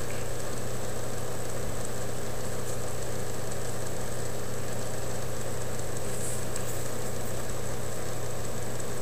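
Steady low hum over an even hiss, unchanging throughout, with a faint click about six seconds in.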